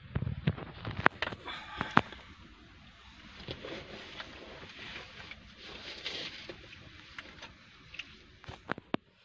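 Rustling and handling noise with scattered sharp knocks and clicks, the loudest about one and two seconds in and a couple more near the end.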